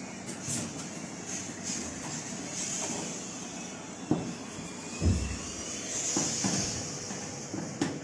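Hand screwdriver driving screws into the sheet-metal back panel of a National semi-automatic washing machine, with a few short knocks against the metal. The loudest is a dull thump about five seconds in.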